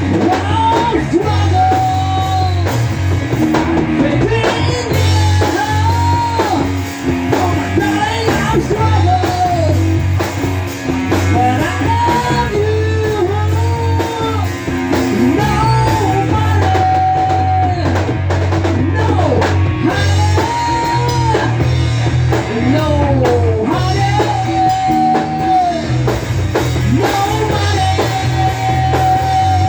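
Grunge-style rock song playing, with electric guitars over bass and a drum kit. A melodic lead line bends between notes and holds some of them.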